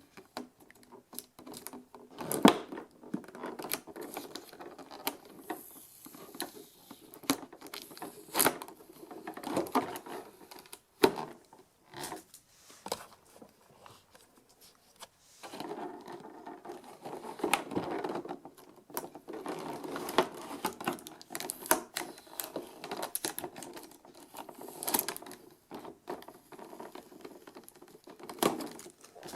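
Hands handling a boxed figure's packaging: plastic and cardboard rustling and crinkling, with irregular sharp clicks and taps, a quieter stretch about halfway through.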